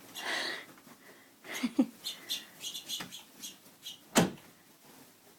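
Pet finches chirping in a quick series of short, high chirps. A brief rustle comes at the start and a sharp knock about four seconds in.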